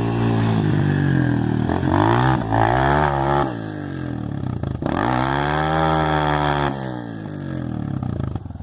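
Orion 125cc mini motocross bike engine revving up and down under throttle, its pitch rising and falling several times. It eases off about three and a half seconds in, then revs up sharply again before dying back down.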